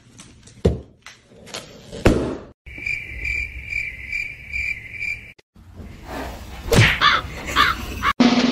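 Rubber balloon squeaking and thumping as a puppy mouths and paws at it, with a loud thud about two seconds in. Then a cricket chirping steadily, about two and a half chirps a second, cuts in and out abruptly for a couple of seconds.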